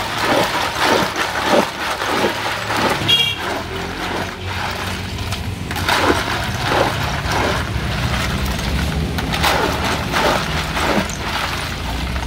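Ice cubes clattering and sloshing in a plastic bucket as a long plastic scoop stirs an iced fruit drink, in short irregular knocks, over a steady low rumble.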